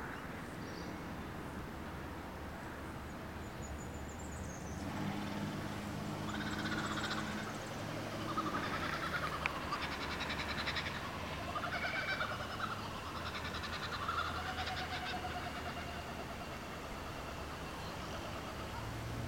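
Outdoor ambience: birds calling repeatedly, with arching whistled notes and trills, from about six seconds in until around fifteen seconds, over a steady low hum that starts about five seconds in.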